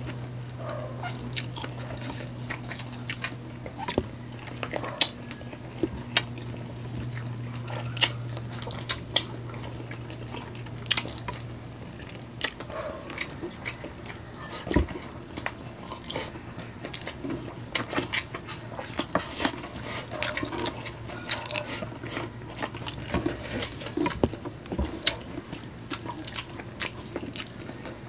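Close-up mouth sounds of eating braised chicken feet by hand: wet chewing, lip smacking and sucking as the gelatinous skin is pulled off the small bones, with many sharp clicks scattered throughout.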